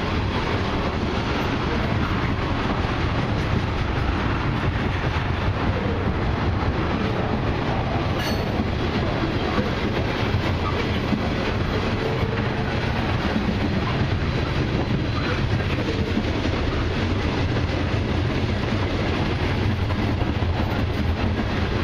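Freight train tank cars rolling past close by: the steady rolling noise of steel wheels on the rails, unbroken throughout.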